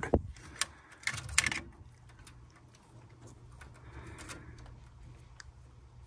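Clicks and light rattling of a wire connector being worked off a furnace gas valve's terminals: a cluster of sharp clicks about a second in, then scattered light ticks, over a steady low hum.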